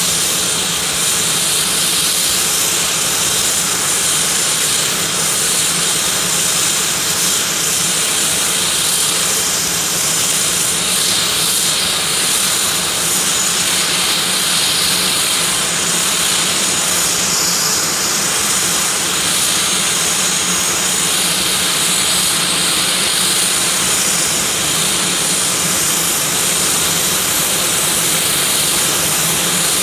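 Basler BT-67's Pratt & Whitney Canada PT6A-67R turboprop engines idling on the ground, a steady turbine hiss and whine. Near the end a high whine rises.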